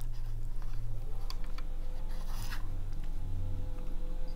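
Faint small clicks and a brief scrape as fingers work a metal inner sleeve down over the wicked deck of an MTL rebuildable tank atomizer, under a low steady hum.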